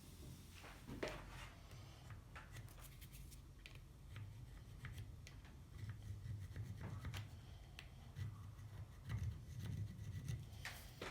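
Light, scattered clicks and rubbing of small parts being handled, over a steady low hum.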